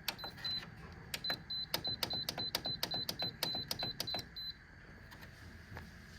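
Electronic control panel of a Kenmore Elite 15,000 BTU window air conditioner: a button clicking and beeping once per press, a short pair near the start and then a rapid run of about a dozen high beeps, some four a second, as the settings are keyed in.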